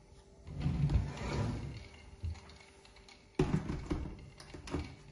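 Plastic jug of a Russell Hobbs blender being handled and set onto its motor base: a low knock about a second in, a sharper clunk about three and a half seconds in, then a couple of light clicks. The motor is not yet running.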